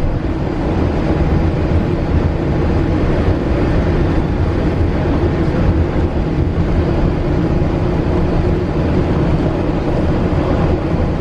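Walt Disney World monorail running at speed: a steady rumble with a constant low hum, heard from inside the cabin.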